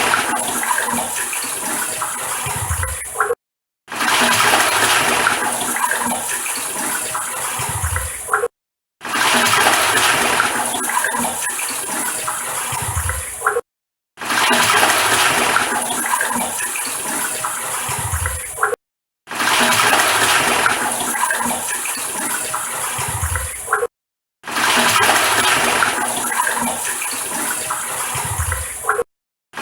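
Toilet flushing: a rush of water that starts loud and eases off over about five seconds, ending with a low thud. It repeats six times with short silent breaks between.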